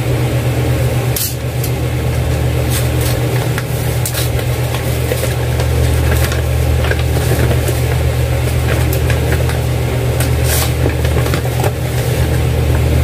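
Wrapping paper crackling and rustling in short, scattered bursts as layers of paper are cut with a box cutter and pulled open, over a loud, steady low hum.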